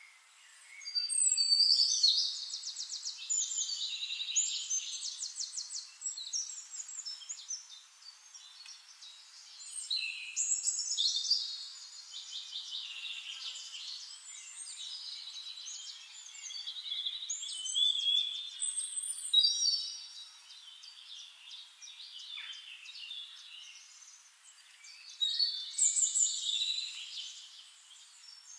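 Birds singing: high chirps, rapid trills and short whistles in about four bouts, each lasting a few seconds.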